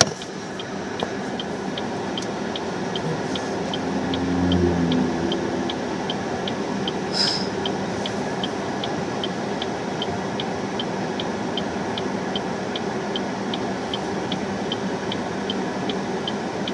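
Car turn-signal indicator ticking steadily, about two and a half ticks a second, over the steady rumble of the car and traffic heard from inside the cabin. A vehicle passes, louder, about four to five seconds in.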